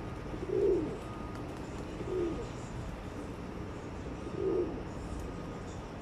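Feral pigeons cooing: three short, low coos about two seconds apart, over steady low background noise.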